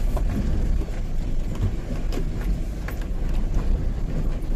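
Diesel engine of a Tata 1512 truck running as it moves slowly, a steady low rumble with light rattles over it.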